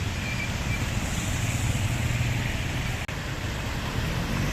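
Road traffic moving through floodwater: vehicle engines running under a steady wash of water and tyre noise. The sound cuts out for an instant about three seconds in.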